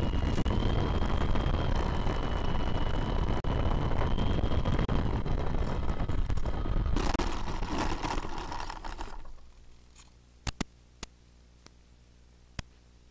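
Electric motor and propeller of a small FPV aircraft running with a steady whine that wavers slightly in pitch, then winding down and stopping about nine seconds in. A few sharp clicks follow.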